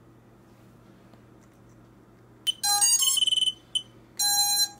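Emax Buzz quadcopter's motors beeping the ESC power-up tones: after a faint steady hum, a run of loud, short beeps at changing pitches starts about two and a half seconds in, with a brief pause before a final group.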